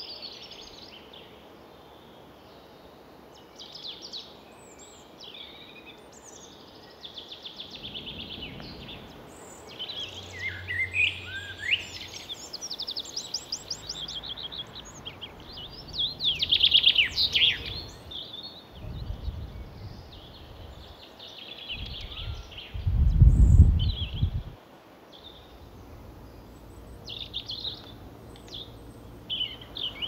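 Several small songbirds singing and calling in turn, with varied phrases, trills and rapid chirp series. Low rumbles come about 19 seconds in and, louder, about 23 seconds in.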